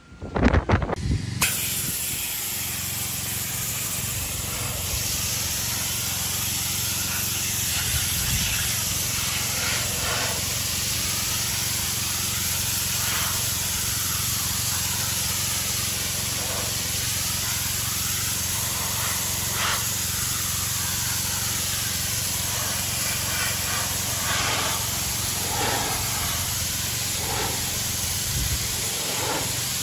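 Pressure washer spraying: a steady hiss of the water jet over a low, even hum from the machine, setting in about a second in.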